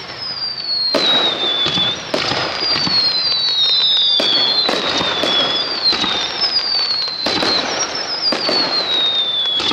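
Starmine fireworks barrage: a string of high whistles, each falling in pitch over about a second and a half and overlapping the next, among sharp launch thumps and bursting cracks.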